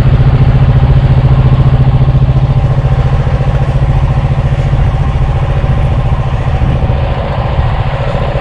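Outboard motor of a speedboat running steadily under way, a loud, close, deep drone.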